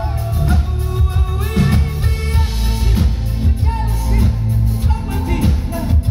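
Synth-pop band playing live: a male lead vocal over synthesizers, bass and a steady drum beat.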